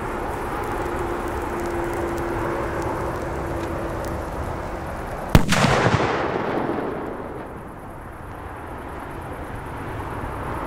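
A Funke Tuono firecracker goes off with a single sharp bang about five seconds in, echoing away over a second or two.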